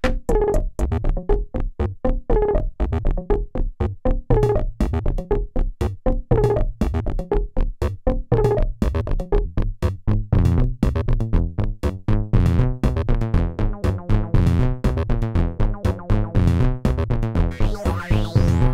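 Moog Mother-32 and Dark Energy analog synthesizers patched together, playing a fast, even run of short synth notes with a resonant filter sweep about every two seconds. Around the middle the pattern grows busier and brighter, and near the end rising sweeps climb into the high range.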